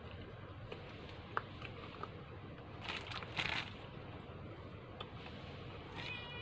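Eating and handling noises at a plate of spaghetti: a light tick, then two short rustles about three seconds in, and a small ringing clink near the end, like a fork touching the plate. A steady low hum runs underneath.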